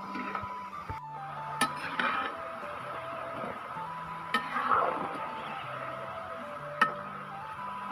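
A few sharp clinks and knocks of kitchen utensils against a dish, the loudest near the end, over soft background music with a simple stepping melody.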